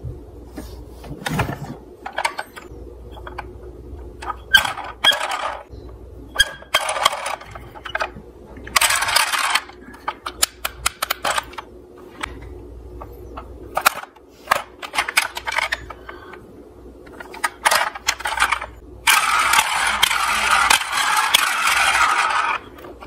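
Plastic toy police cars and ambulances clicking and clattering against each other as they are handled in a cardboard box, with a few short scrapes. Near the end a steadier rattling noise runs for about three seconds.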